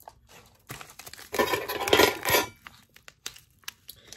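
Small objects being handled on a table: light knocks and clinks, with a burst of rustling about midway.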